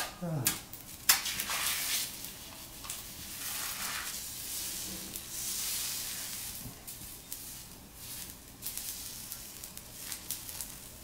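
Egg sizzling on a hot steel teppanyaki griddle as it is trickled off a spatula in a thin line, a steady high hiss that swells for a few seconds in the middle. A few sharp clicks of utensils near the start.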